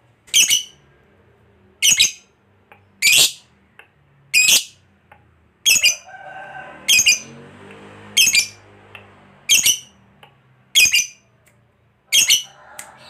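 A lovebird giving ten sharp, shrill calls, evenly spaced about one every second and a quarter, with fainter chattering from other birds a little after the middle.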